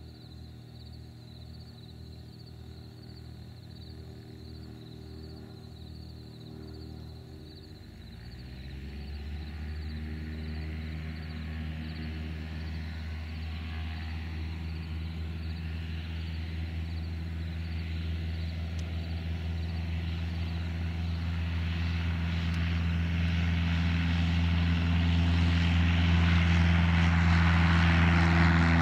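Cessna 172's piston engine and propeller: first idling with an uneven pulsing beat, then about eight seconds in the throttle opens to full takeoff power with a rise in pitch. The steady drone then grows louder through the takeoff roll as the plane comes closer and lifts off near the end.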